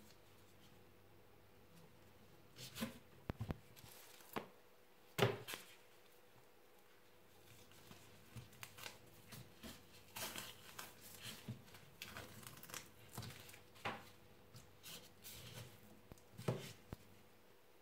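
Knife working on a roe deer saddle on a wooden cutting board: quiet, scattered scrapes, taps and knocks as the meat is cut free and the loin trimmed, with a few sharper knocks, the loudest about five seconds in and another near the end.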